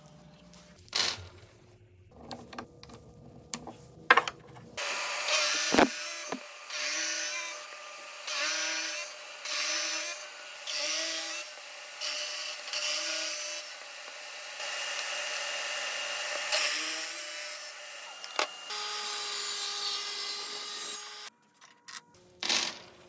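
Power drill spinning wood stock and cutting it into a dowel, a loud shaving, cutting noise. It comes in pulses about once a second, then runs steadier, and stops about two seconds before the end. A few scattered knocks and clicks come before it starts and after it stops.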